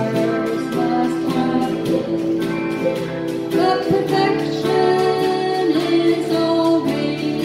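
A woman singing a song, accompanied by a steadily strummed acoustic guitar.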